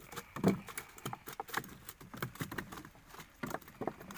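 Freshly caught archerfish flapping and slapping against each other and the boat floor, with the fish being handled: an irregular run of wet pats and knocks, a few with a duller thud.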